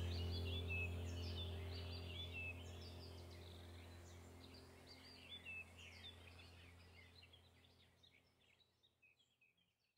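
Background soundtrack of a sustained low drone with birdsong chirping over it, fading out steadily to silence.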